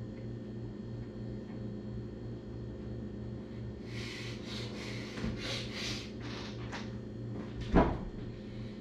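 A run of six or seven short rustling swishes about four seconds in, then one sharp knock near the end, the loudest sound, over a steady low hum.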